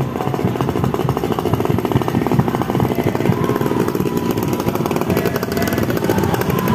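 Motorcycle and scooter engines running close by in slow traffic, with a loud, fast, even rattle.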